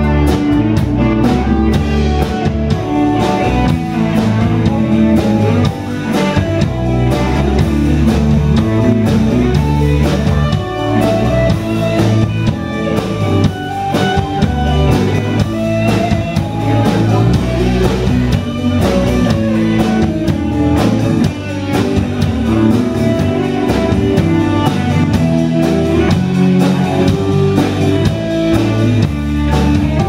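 Live band playing an instrumental passage on electric guitars, bass and a drum kit, with no vocals. The music is loud and continuous.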